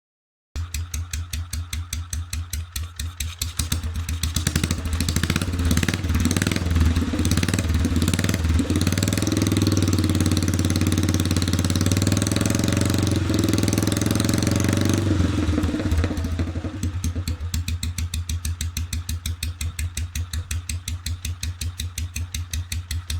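BMW R25/2 single-cylinder four-stroke engine running through a homemade muffler: idling with distinct even exhaust pulses, revved up and held for about twelve seconds, then settling back to idle.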